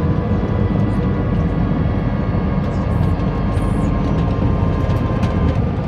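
Airbus A321 cabin noise from a seat over the wing in flight: a steady, deep roar of the engines and air rushing past the fuselage, with a few faint steady hum tones over it.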